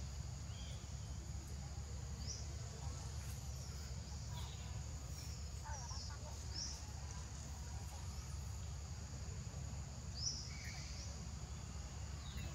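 Outdoor ambience: a steady high insect drone over a low rumble, with a few short high chirps now and then, the clearest about two seconds in, around six seconds, and near ten seconds.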